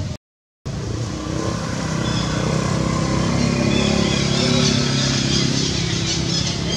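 A motor vehicle's engine running steadily as it passes close by, a low even hum. The sound drops out completely for about half a second just after the start.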